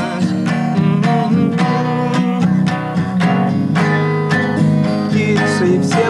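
Acoustic guitar strummed in a steady rhythm of chords.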